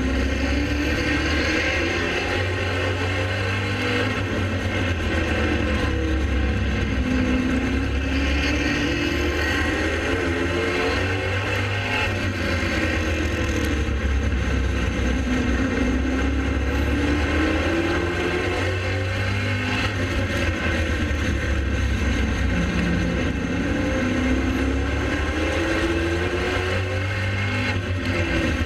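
Late model race car engines running at racing speed, with a constant low rumble. The engine note falls and rises again every several seconds as the cars lift for the turns and accelerate onto the straights.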